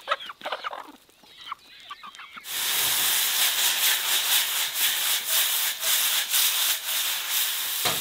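Chickens clucking for about two and a half seconds, then an abrupt change to the steady sizzle and crackle of hedgehog mushrooms frying in a cast-iron skillet.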